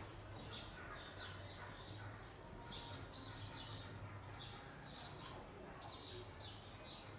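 Dry-erase marker squeaking and scratching on a whiteboard as words are written: short high strokes in quick clusters, over a low steady hum.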